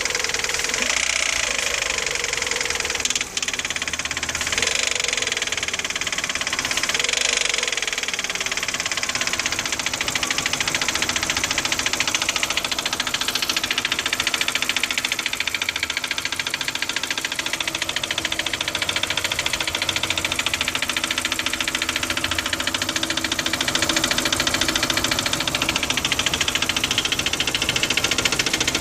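Engine revved briefly a few times, then settling to a steady idle with a fast, even knock. The knock started after the pistons were replaced with notched pistons; the owner says it goes away and returns after the engine has run a while.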